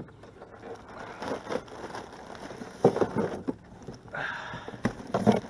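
Handling noises as a crappie is put into a plastic cooler on a kayak: irregular rustling and scraping with small clicks, and two sharp knocks, the loudest about three seconds in and another near the end.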